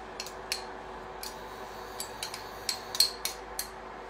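Metal teaspoon clinking and scraping against a small glass bowl while paste is scooped out: a dozen or so short, irregular clinks, the loudest about three seconds in.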